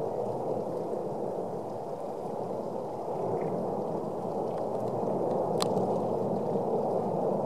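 Erupting vent of the La Palma volcano throwing up a lava fountain: a steady low rushing noise, with one sharp click about five and a half seconds in.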